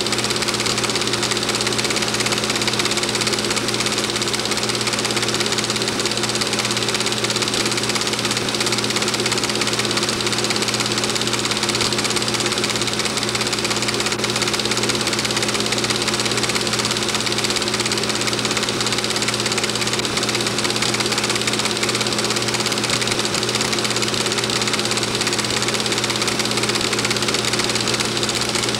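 Film projector running steadily: a constant mechanical hum and whir over hiss, unchanged throughout.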